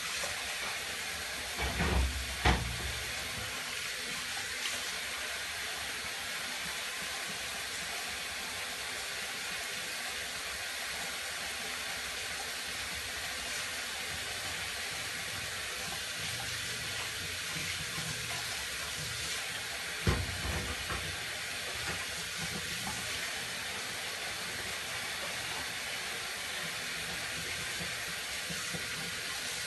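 Kitchen tap running steadily into a sink while dishes are washed by hand. Dishes knock twice a couple of seconds in and once more about two-thirds of the way through.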